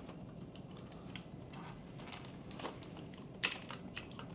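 Light, scattered clicks and taps of a plastic servo and its lead being handled and seated into the mount of a plastic RC truck chassis.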